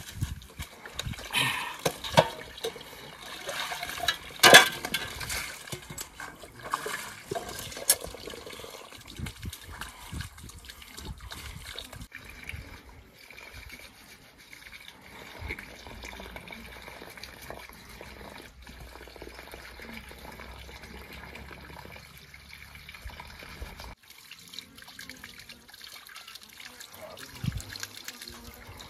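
Water trickling and splashing, with a few sharp knocks in the first several seconds, the loudest about four and a half seconds in.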